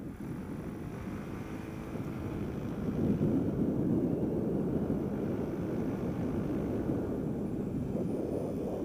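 GY6 four-stroke scooter engine in a Honda Ruckus pulling under way, mixed with wind rushing over the microphone. It gets louder about three seconds in as the scooter speeds up.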